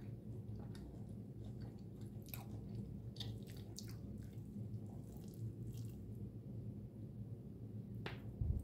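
A spoon scooping a moist, soaked bread mixture from a glass bowl and chewing, heard as quiet wet squishes and small clicks over a low background hum. Near the end there is a sharper scrape and a soft thump.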